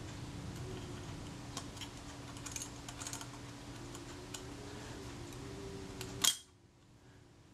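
Metal tweezers picking and scraping at small parts inside a stripped-down Kodak Retina Reflex IV camera body: a few faint, light clicks, then one sharper click just after six seconds, over a steady low hum that drops away after that click.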